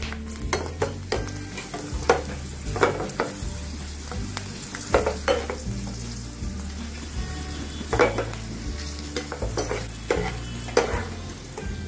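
Dried bitter gourd slices deep-frying in hot mustard oil in a nonstick pan, sizzling, while a steel slotted spoon stirs them, scraping and tapping against the pan at irregular intervals, sometimes several times in a second.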